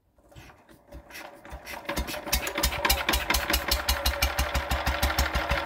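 Fowler PA 1.5 hp petrol stationary engine starting on choke: it catches within the first second, its firing quickens and grows louder, and by about two seconds in it settles into a steady, even beat.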